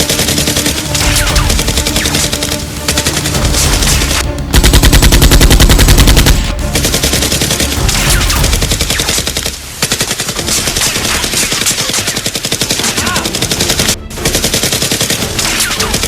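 Dubbed automatic-gunfire sound effects: long bursts of rapid machine-gun fire, broken by short gaps, with the loudest burst about four to six seconds in. Background music runs underneath.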